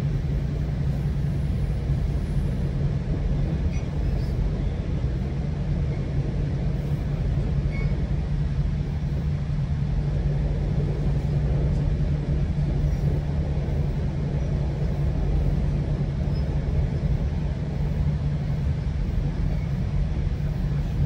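GO Transit bilevel passenger train under way, heard from inside the coach: a steady low rumble of the running train and its wheels on the rails, with an even low hum.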